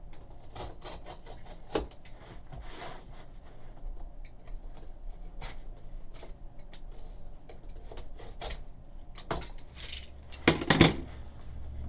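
Utility knife blade slitting the plastic wrap and seal along the edges of a cardboard trading-card box, in scattered scraping and crinkling strokes, with a few sharp knocks near the end.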